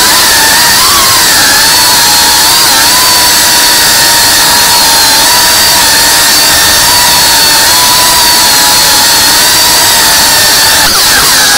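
Tiny Whoop micro FPV drone's motors and propellers whining loudly and steadily, the pitch wavering up and down with throttle changes and swooping near the end.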